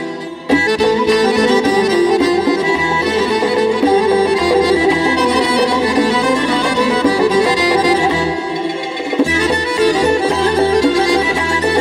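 Instrumental break of a live folk band: a violin plays the melody over accordion and a doira frame drum, with no singing.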